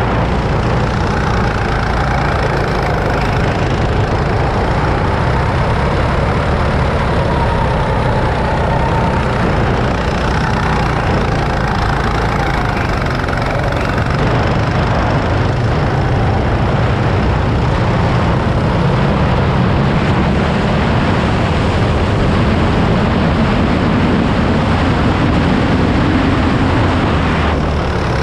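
Go-kart engine running continuously as the kart is driven around the track, heard from the driver's seat, its pitch wavering as the throttle changes through the corners.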